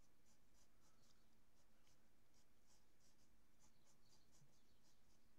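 Faint scratching of a pencil on paper, made by short, quick sketching strokes, several a second.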